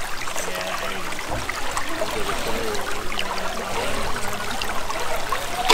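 Shallow creek water running and trickling steadily over and between rocks at a small rock dam.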